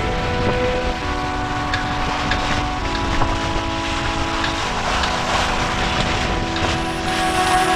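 Wind buffeting the microphone over the rush and splash of water streaming past the hull of a sailing dinghy planing at speed.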